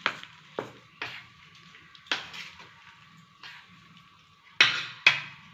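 Metal spoon scraping and clinking against a stainless-steel bowl while stirring a thick dal-and-onion batter: a run of sharp clinks, the two loudest near the end.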